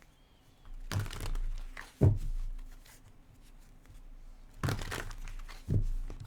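Rustling, crinkling handling noise in two bursts, each ending in a dull thump.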